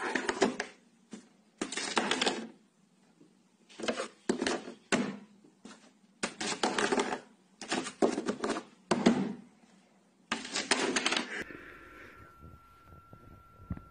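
Hard plastic cable-grommet cap clattering and rattling against its hole in a wooden desk, in repeated bursts of quick clicks and knocks about every second or two. It stops near the end, leaving a faint steady hum.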